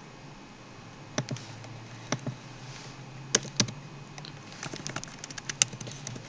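Computer mouse clicks and keyboard key taps: a few separate clicks in the first half, then a quick run of key taps over the last second and a half or so.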